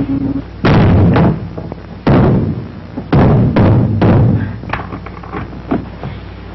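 Heavy stamping thuds on a floor overhead: about five loud ones in irregular succession over the first four seconds or so, each ringing on briefly, then lighter, scattered knocks.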